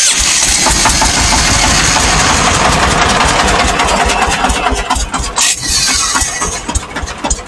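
Freshly repaired twelve-year-old diesel engine just started and running, a loud dense clatter that turns into a regular, fast pulsing beat near the end as it settles.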